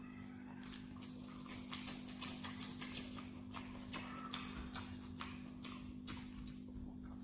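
Close-miked chewing and lip-smacking while eating boiled pork: an irregular run of wet mouth clicks, busiest from about a second in, over a steady low hum.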